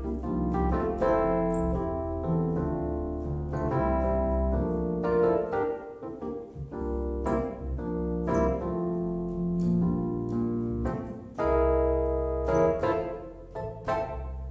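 Piano playing slow instrumental music: struck chords ringing over a moving bass line.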